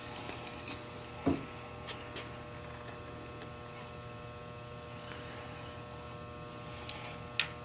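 Steady electrical hum, with a few faint clicks and rustles from paracord being wrapped and pulled tight around a paddle shaft.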